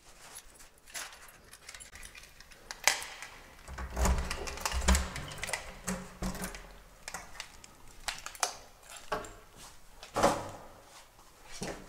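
A bunch of keys jangling and clicking in the lock of a wooden front door as it is unlocked and opened, with sharp clicks and knocks from the key and handle and a low rumble in the middle.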